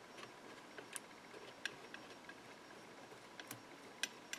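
A small metal palette knife working glue into the cracks of an Arisaka Type 99's wooden stock: a handful of faint, irregular clicks and taps as the blade presses and scrapes against the wood.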